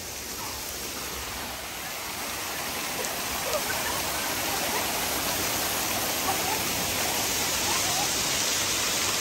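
Steady hiss of falling or running water, growing gradually louder.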